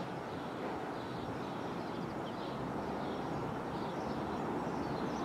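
InterCity 125 (HST) approaching, its Class 43 power car's diesel engine and wheel noise a steady rumble that grows slowly louder as the train nears.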